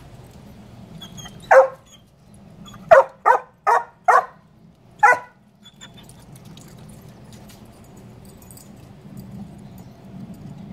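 Black Labrador retriever barking at a gecko hidden in a woodpile: six short, sharp barks, one about a second and a half in, then four in quick succession around three to four seconds in and a last one near five seconds.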